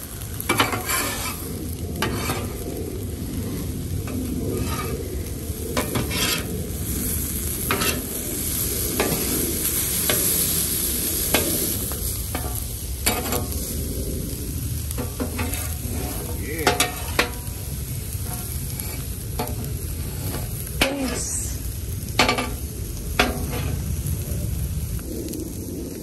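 Food sizzling on a hot flat-top griddle while a metal spatula scrapes and chops across the cooking surface, turning diced plant-based steak tips. The hiss is steady, with a sharp scrape or clack every second or two.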